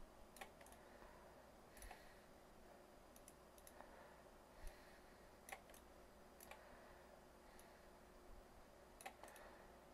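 Faint computer mouse clicks, about a dozen, scattered irregularly over near-silent room tone.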